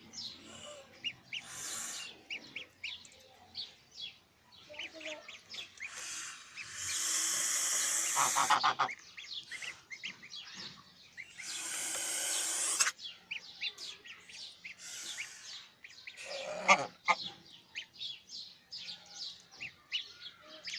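Goslings peeping: many short, high chirps in quick succession. A few longer bursts of hissing noise break in, about 2 s, 7 s and 12 s in, and a louder, lower call sounds near 17 s.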